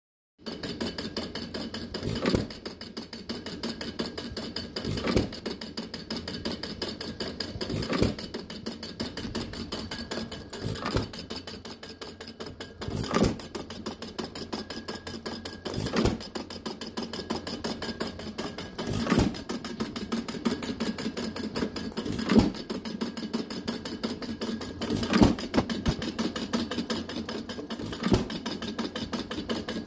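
Fuller & Johnson 1½ HP hit-and-miss engine running unloaded: a steady rapid mechanical clicking as the flywheels coast, broken by a single firing stroke about every three seconds as the governor lets it fire.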